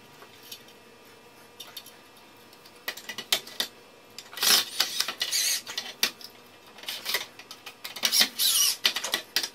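Cordless drill run against a wooden block in two bursts of about a second and a half each, about four and eight seconds in. Light clicks and taps of handling the block and tool come before them.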